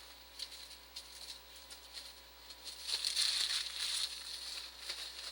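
Trading cards and packaging being handled: a dry rustling and light clicking of card stock, busiest a few seconds in.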